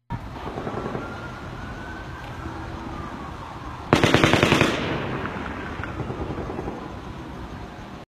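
Long burst of rapid automatic-sounding gunfire, many shots a second for about a second, near the middle; quieter rapid shots crackle before and after it, and a siren wails faintly in the first half.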